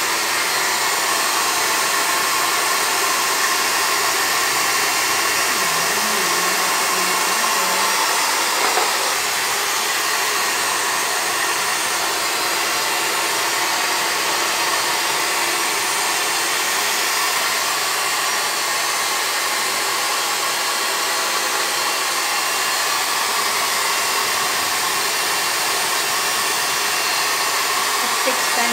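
Pet hair dryer blowing steadily, an even rush of air that never pauses, while a puppy's curly coat is brushed out.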